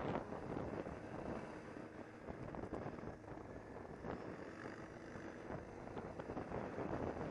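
ATV engine running under way on a rough gravel road, with wind buffeting the microphone.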